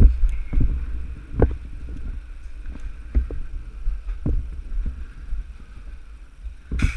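Irregular low thumps over a steady rumble, the sound of a player moving with a body-worn action camera: footsteps and gear knocking. A sharper crack comes near the end.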